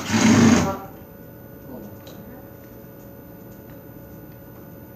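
Cordless drill backing a hinge screw out of a door in a short whirring burst that stops about a second in, followed by a few faint clicks.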